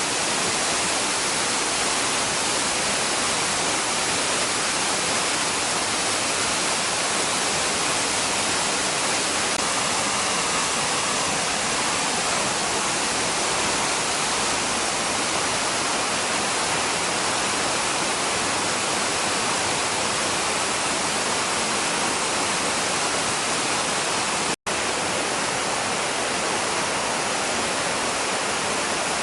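Waterfall: a steady, even rush of falling water, broken once for an instant near the end.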